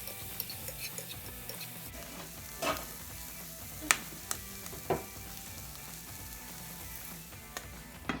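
Food sizzling in a hot frying pan, with a few sharp clicks of a utensil against the pan while it is stirred, the loudest about four seconds in.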